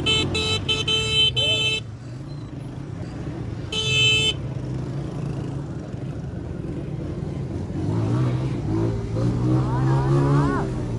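Vehicle horn sounding in a rapid string of short blasts for about two seconds, then one more short toot about four seconds in, over a steady engine and road hum. A voice comes in near the end.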